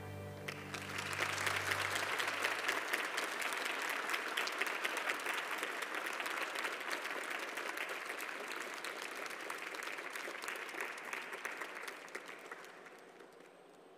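Audience applauding as the last chord of a slow song fades away. The clapping swells about a second in, holds steady, then tapers off near the end.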